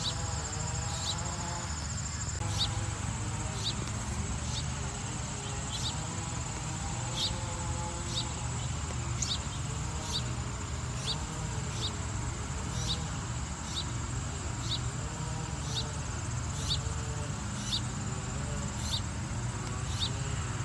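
Crickets singing: one steady high trill that never breaks, with a shorter chirp repeating about once a second, over a low steady rumble.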